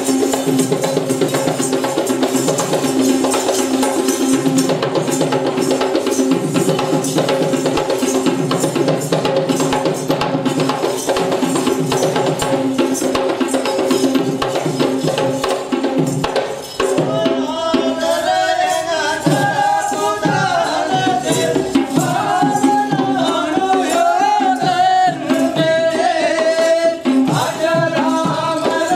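Sri Lankan Kandyan drums (geta bera) played in fast, dense strokes with a bright metallic jingling. About two-thirds of the way through, a high, wavering melody line joins in over the drumming.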